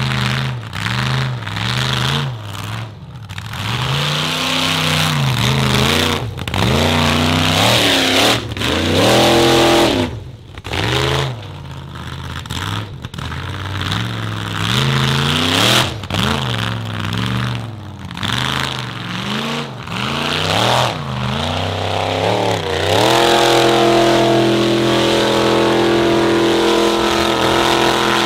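Formula offroad competition car's engine revving hard, its pitch repeatedly climbing and dropping with several brief cuts as the throttle is worked. For the last few seconds it is held steady at high revs.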